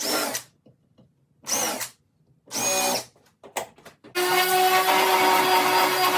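Power drill run in three short trigger pulls, each a brief whine, then a few clicks and a longer steady run from about four seconds in, as when driving screws into wood blocks.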